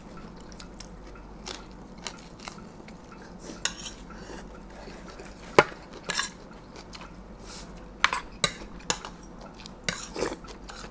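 Spoons and forks clinking and scraping against plates during a meal: scattered light taps, some with a brief ring, the sharpest about five and a half seconds in.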